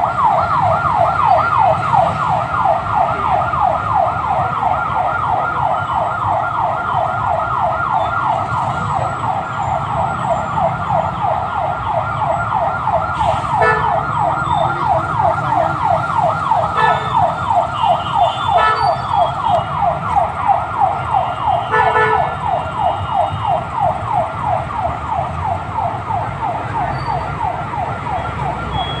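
Emergency vehicle siren wailing in a fast yelp, sweeping up in pitch several times a second without a break, over a low rumble of stalled traffic. A few short beeps cut in around the middle.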